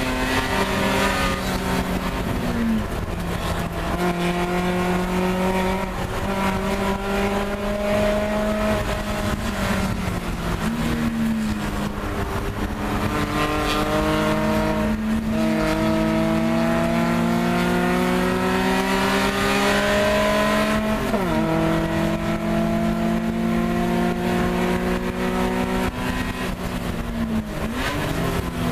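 Race car engine heard from inside the stripped, roll-caged cabin under hard running. Its note climbs slowly and falls back several times as the car accelerates, shifts and lifts, with a quick dip and recovery about 21 seconds in and again near the end.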